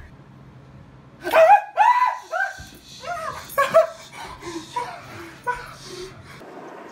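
Dog barking in a quick series of short, high-pitched barks, loudest about a second in and growing weaker and sparser toward the end.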